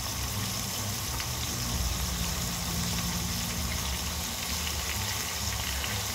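Pork hocks frying in a pan under a glass lid: a steady sizzling hiss with a low rumble underneath.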